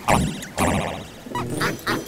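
A cartoon man's 'ha ha ha' laugh, electronically altered with sound effects, in several short pitched syllables.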